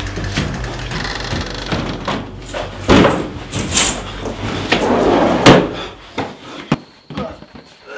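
Several loud knocks and bangs over a steady low hum, which dies away about six seconds in.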